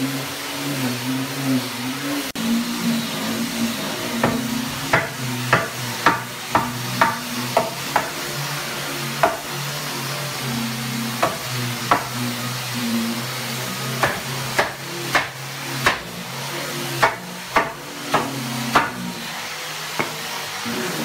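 Hammer knocking on a wooden door frame, about two dozen sharp knocks in irregular runs, as the top rail is driven into place on a large panel door. A steady low hum runs underneath.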